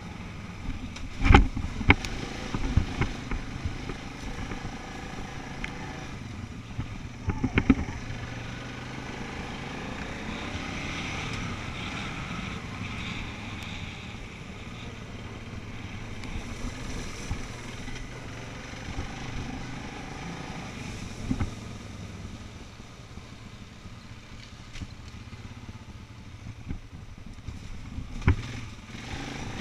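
ATV engine running steadily while riding a rough dirt trail, with sharp knocks and rattles from bumps about a second in, around eight seconds in, and again near the end.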